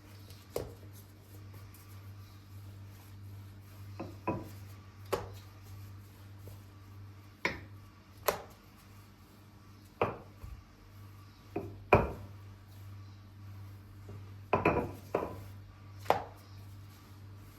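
A knife cutting on a cutting board: separate, unhurried knocks at irregular intervals, one every second or two, with a quick cluster of cuts near the end, over a steady low hum.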